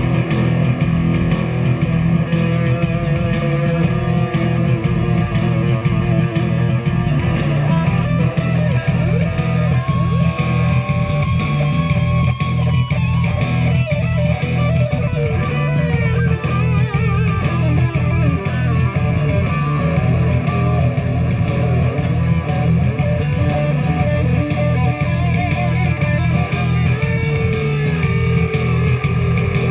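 Rock band playing live at a sound check: electric guitar over bass guitar and drums with a steady beat.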